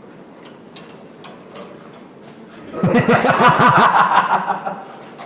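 A loud burst of hearty laughter from a person, rapid rising-and-falling 'ha-ha' pulses, starting about three seconds in and lasting about a second and a half, over a low workshop background with a few faint clicks.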